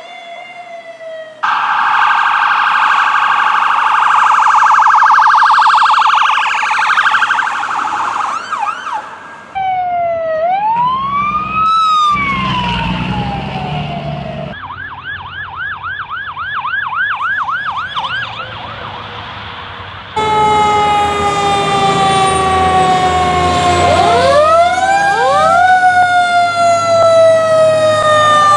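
Police car and fire truck sirens in turn: a fast high warble, then a wail that rises and falls, then a rapid yelp, and in the last part several long, slowly falling siren tones overlapped by rising sweeps.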